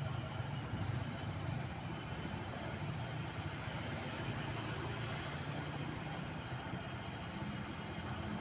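Honda PCX160 scooter's single-cylinder engine idling steadily.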